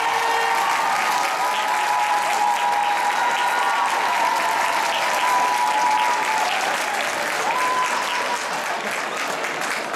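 Audience applauding, a dense steady clapping with a few voices calling out over it, easing a little near the end.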